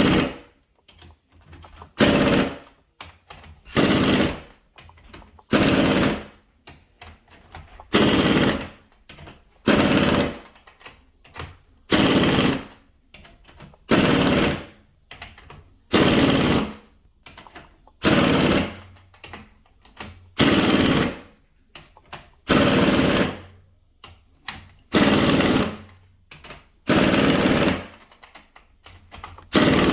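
Impact wrench hammering in short bursts about every two seconds, run on the screws of a pair of clamp-type coil spring compressors, turning each side in turn to compress a MacPherson strut spring evenly.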